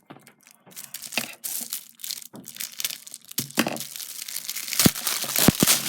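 Crinkling and rustling of plastic packaging as a cube mat is handled and unrolled, busier in the second half, with a few sharp clicks near the end.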